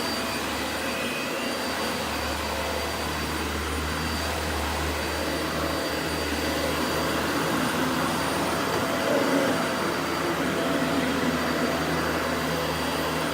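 Dyson Light Ball Animal upright vacuum cleaner running steadily, a constant motor and airflow noise with a faint high whine.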